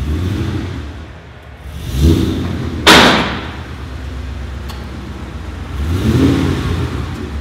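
Ford Mustang GT V8 running, swelling twice in short revs, about two seconds in and again near the end. A single sharp crack about three seconds in is the loudest sound.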